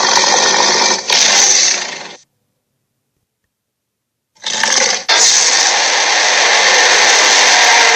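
A loud, noisy monster sound effect from an animated film. It cuts off abruptly about two seconds in, leaving dead silence, then starts again about two seconds later and carries on.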